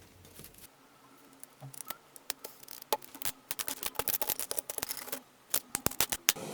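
A fast, irregular run of sharp clicks and snaps from small hard objects, thickening about three seconds in, pausing briefly, then stopping just before the end.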